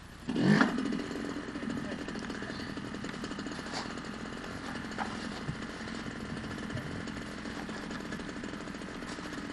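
Arctic Cat Kitty Cat children's snowmobile's small two-stroke engine starting up: it catches with a quick rise in revs about half a second in, then keeps running steadily at idle.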